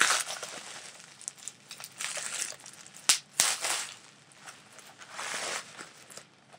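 Bubble wrap being pulled and crumpled off a hand vacuum: irregular plastic crinkling and rustling in bouts, with a sharp snap about three seconds in.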